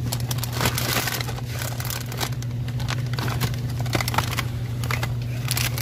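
Plastic packets of dried fish crinkling as they are handled, a run of short crackles over a steady low hum.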